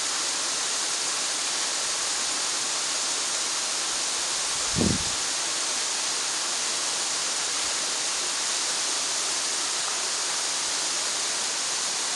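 A waterfall rushing steadily, a dense even hiss of falling water. A brief low thump about five seconds in.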